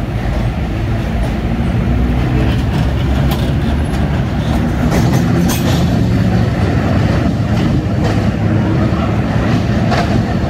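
Vintage BMT Standard and R1/9 subway train moving along elevated track: a steady low rumble of motors and wheels, with scattered clacks over rail joints in the middle of the stretch and once near the end.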